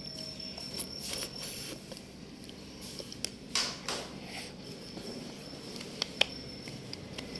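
Quiet eating sounds from jelly being eaten: scattered soft mouth smacks and clicks, with a few sharper clicks in the middle and two near the end.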